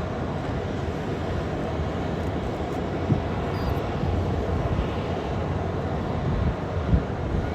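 Boeing 747-400 LCF Dreamlifter taxiing, its jet engines giving a steady rumble, with gusty wind buffeting the microphone and two brief thumps.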